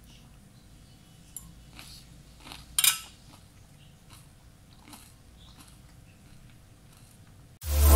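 A few light clicks and taps of a metal fork on a plate of salad, with one sharper clink about three seconds in. Loud electronic music starts suddenly near the end.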